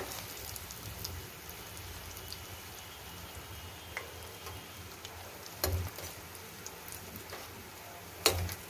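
Bread slices deep-frying in hot oil, a steady sizzle full of small crackling pops. Twice, once past the middle and again near the end, a metal slotted spoon knocks sharply against the pan as it turns the slices.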